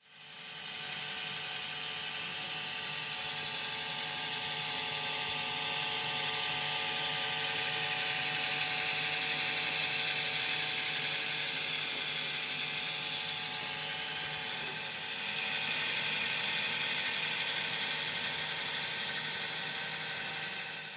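Motor and gears of a Bachmann OO gauge Class 150 model train running on a rolling road: a steady electric whir with a high hiss, dipping briefly once before picking up again.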